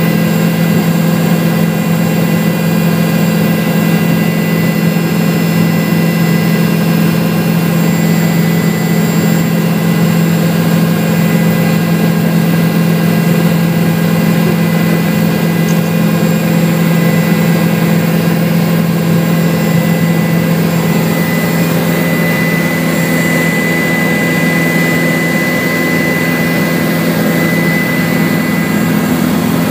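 Helicopter in flight heard from inside the cabin: a loud, steady drone of engine and rotor with a deep hum and several high whining tones. One whine grows stronger about two-thirds of the way through.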